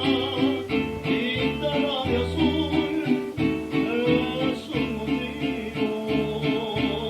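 Mariachi band playing, with strummed guitars keeping a steady rhythm under a held melody line.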